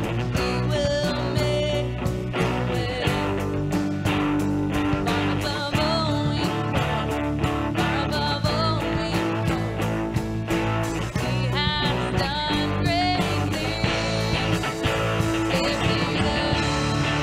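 Church praise band playing a worship song: guitar and drums with a steady beat and voices singing the melody.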